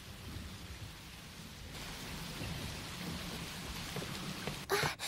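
Heavy rain pouring steadily over a low rumble of thunder, the hiss of the rain growing louder a couple of seconds in. Near the end come a few sharp knocks.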